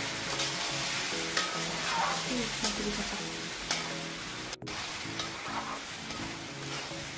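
A metal spatula stirs and scrapes rice around a steel wok as it fries, with a steady sizzle and repeated clinks of the spatula against the pan.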